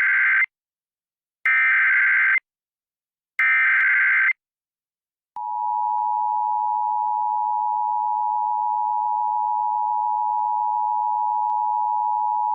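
Emergency Alert System SAME header: three bursts of warbling data tones, about a second each with a second's gap between them, then the two-tone EAS attention signal held steady for about eight seconds. It introduces a flash flood warning.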